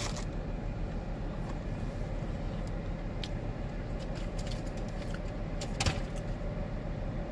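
A steady low rumble and hum with a faint constant tone, with a few faint clicks and one sharper click about six seconds in.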